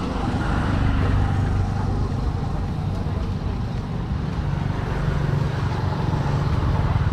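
Street traffic: the steady hum of passing motor vehicles' engines, with a low engine note that rises in pitch about halfway through.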